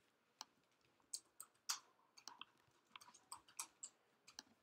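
Faint, irregular clicking at a laptop as pages are clicked through and scrolled: a dozen or so short clicks, bunched most closely about two to three seconds in.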